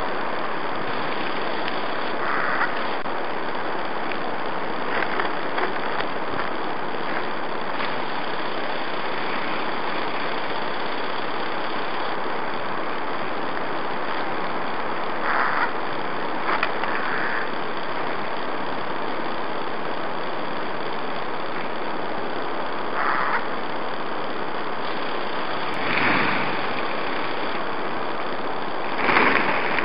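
Steady, even hiss-like noise with no clear pitch, broken by a few short, slightly louder patches of noise, the loudest near the end.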